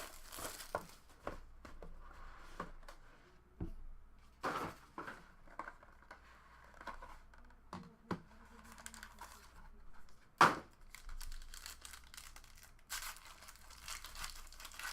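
A sealed box of 2019 Panini Honors football cards being opened by hand: wrapping tearing and crinkling, with scattered clicks and knocks of the cardboard box being handled and one sharp knock about ten seconds in.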